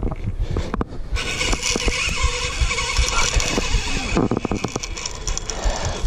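Spinning reel's drag buzzing as a hooked ray pulls line off it for about three seconds, then stops sharply. A run of quick clicks follows, with wind rumbling on the microphone.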